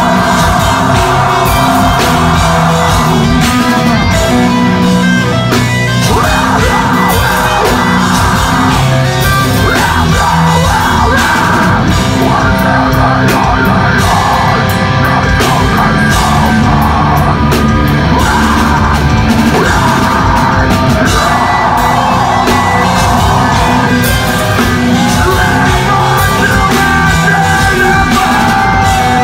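Loud live deathcore band playing: heavily distorted electric guitars and pounding drums, with harsh screamed vocals over them. Close and dense as picked up on a phone in a small club.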